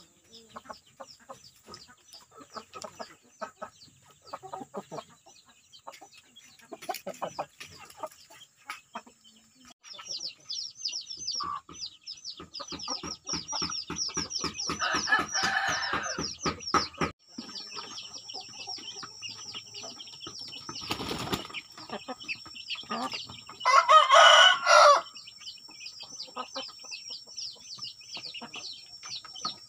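Chicks peeping rapidly and without pause while a hen clucks. A rooster crows once, loudly, about 24 seconds in.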